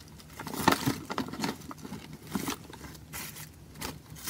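Hands rummaging through a collection of small plastic toy figures and packaging: irregular clicks, taps and rustles.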